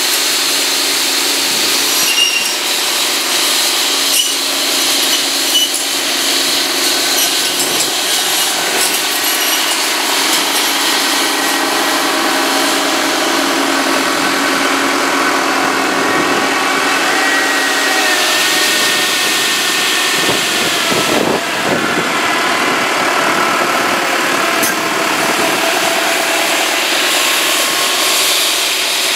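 Tractor-mounted McConnel circular-saw branch cutter running with its saw blades spinning and cutting into branches, over the steady running of the New Holland tractor's engine. Occasional sharp cracks and knocks come in the first third, and the whine sags briefly in pitch about two-thirds through.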